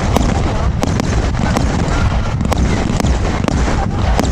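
Astral Raider 55-shot firework cake firing, its shots going off as sharp irregular cracks about two to three a second, over a steady rumble of wind on the microphone.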